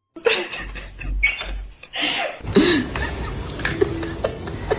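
A person laughing in short breathy bursts.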